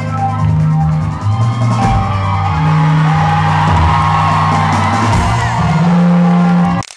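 Live rock band playing, with held bass notes under drums. The audio cuts off suddenly near the end.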